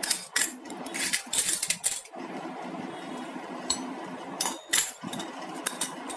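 Small stainless-steel miniature cups and saucers clinking against each other as they are handled and set down: a quick run of metallic clinks, then a few single clinks, over a steady low hum.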